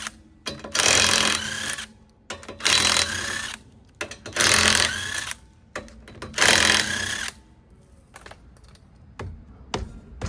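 Impact wrench spinning lug nuts off a car wheel in four bursts of about a second each, every burst with a rising whine from the motor, followed by a few light clicks of the nuts being handled.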